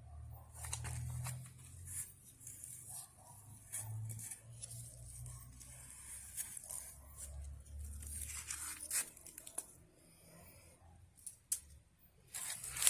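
Hands rummaging among orchid pots and potting material in a search for slugs: irregular rustling and crinkling with scattered small clicks and taps, busiest near the middle and again at the end.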